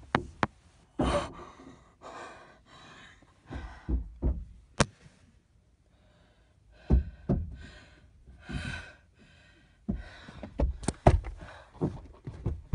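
Heavy breathing in repeated gasps, broken by sharp knocks and thumps as a handheld camera is jostled.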